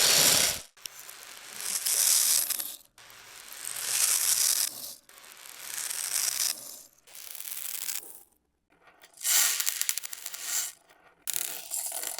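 Crunchy, rattling chewing sound effects, like beads being gobbled. They come in swells about every two seconds, with short breaks between them.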